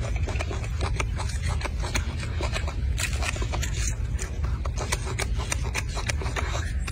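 Quick, crackly clicks and rubbing as a golden snub-nosed monkey tears at and chews a mandarin orange's peel, heard close up over a steady low rumble.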